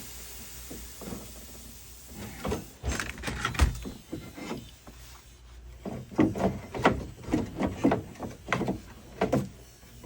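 Irregular clicks, knocks and scrapes of metal parts inside a Jeep TJ Wrangler door as a lock rod is worked off the door latch, in two bouts, the loudest knock about three and a half seconds in.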